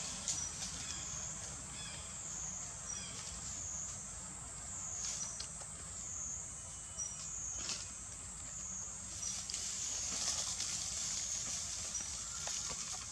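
Outdoor forest ambience dominated by a steady high-pitched insect buzz that swells and dips about once a second, with a few faint short chirps and some rustling in dry leaves near the end.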